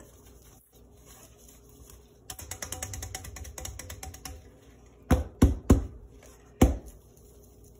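Stainless steel mixing bowl handled with gloved hands on a plastic-wrapped counter: a couple of seconds of light crackling, then three quick knocks and one more about a second later.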